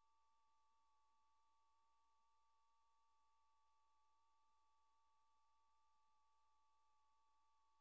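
Near silence: a faint hiss with two faint steady tones close together in pitch, unchanging throughout.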